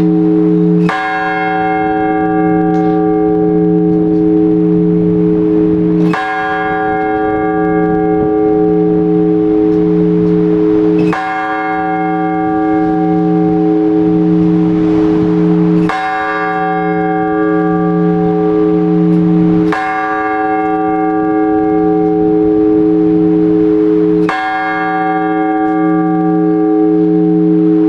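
A single large Orthodox church bell tolled in slow, even strokes, six times, about every four to five seconds, each stroke ringing on with a long hum until the next. This is the blagovest, the measured tolling that calls the faithful to the all-night vigil.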